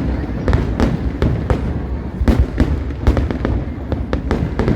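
Fireworks going off: a fast, irregular series of sharp bangs, several a second, over a continuous low rumble.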